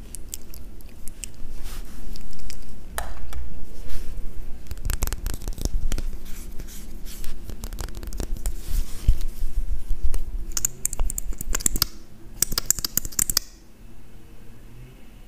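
Close-miked ASMR trigger sounds: dense scratching, tapping and clicking on objects, with a stretch of crisp rustling near the end before it quiets down.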